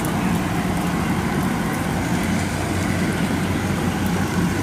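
Kubota DC-108X combine harvester's diesel engine running steadily while it harvests rice, a constant low drone.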